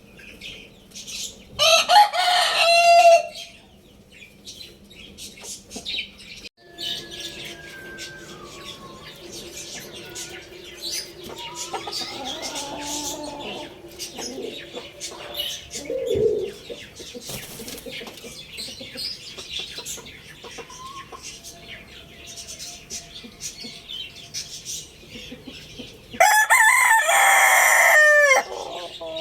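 A rooster crows twice: a short crow about two seconds in and a longer, loud crow near the end. Between the crows, quieter clucking and chirping from chickens and small birds can be heard.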